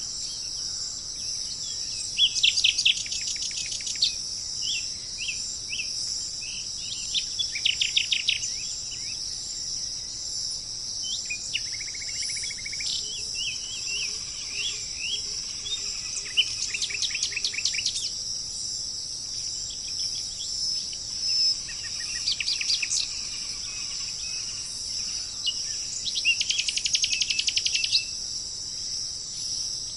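Birds singing in runs of quick, repeated notes about every five seconds, loudest near the start and end. Under them runs a steady high insect chorus.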